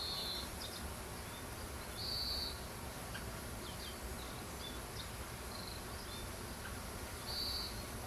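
A bird repeats a short buzzy call about every two seconds, four times, with brief thin chirps in between, over a steady high hiss of insects.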